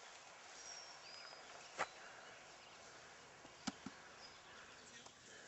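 Quiet outdoor background broken by two sharp clicks about two seconds apart, with a few faint, short, high chirps early on.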